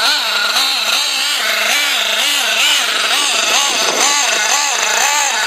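Picco .28 nitro engine in a HongNor truggy running during break-in, its pitch rising and falling about twice a second as the car is driven gently.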